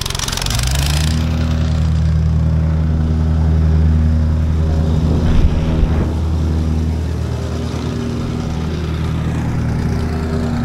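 Vibrating plate compactor's engine throttling up within the first second, then running steadily at high revs. A brief rattling hiss is heard as it comes up to speed.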